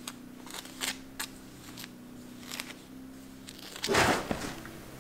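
Stones and mortar being handled: a series of short clicks and scrapes, then a louder rough scrape about four seconds in, over a faint steady hum.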